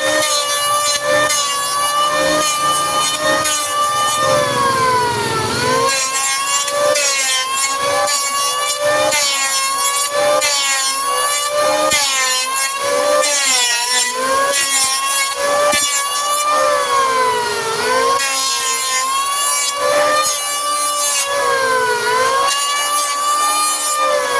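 Electric hand planer running and cutting wood, its blades freshly sharpened on P280 sandpaper. The motor's pitch sags during each pass as the cut loads it, then jumps back up when it is lifted off, repeating over and over, with the rasp of the cut throughout.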